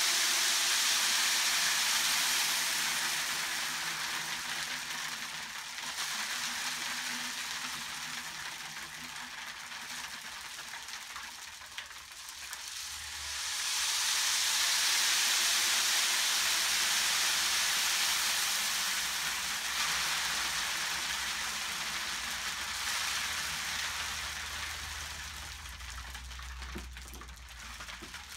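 Beads cascading down through a 3D-printed polyester rain stick and striking the piezo discs inside it, a steady pattering hiss. It fades away, then a fresh cascade surges up about halfway through and slowly dies down again.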